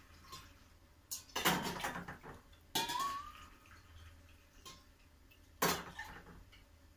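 Brine poured from a stainless steel bowl into a large glass pickling jar of cucumbers, with the metal bowl clinking against the glass. It comes in a few separate pours and knocks; the loudest starts about a second in and lasts about a second.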